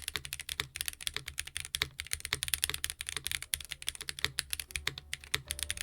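Fast, continuous typing on a Crane80 keyboard with a carbon-fibre plate, fitted with KBDfans roller linear switches whose stems ride on metal ball bearings. The keystrokes have a deep sound with a sharp clack.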